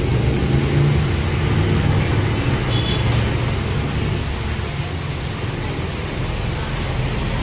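Steady low background noise with a hiss over it, running on without a break.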